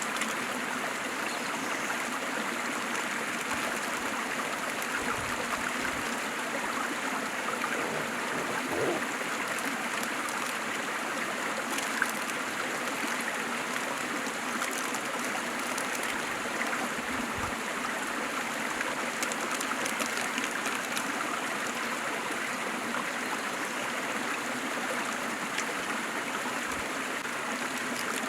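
Waterfall: a steady rush of falling, splashing water that does not let up, with one brief tick about twelve seconds in.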